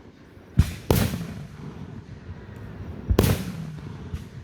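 Shots from a 125-shot consumer fireworks cake going off: about half a second in and again about three seconds in, a low thump is followed quickly by a sharp bang that trails off, with a smaller thump near the end.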